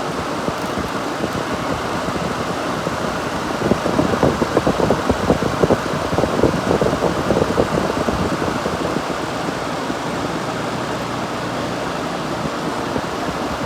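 Vintage Gibson Air Sweep 6,000 BTU window air conditioner running, its fan blowing air steadily from the vents. From about four to eight seconds in, the air stream gusts unevenly against the microphone.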